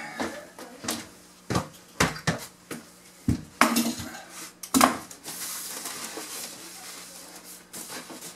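A string of clattering knocks and thuds as the roll of paper underlayment is handled and set down on the subfloor, the loudest about five seconds in. After that comes a steady rustle of the paper sliding and unrolling across the floor.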